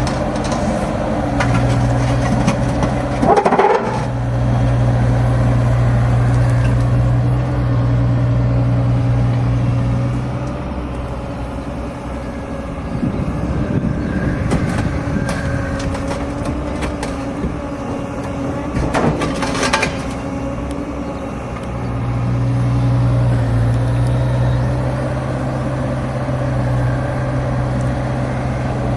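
Cat 305.5 mini excavator's diesel engine running steadily under working load, with hydraulics humming as the tilt-rotator bucket moves. Two sharp knocks of broken concrete come a few seconds in and again about two-thirds of the way through.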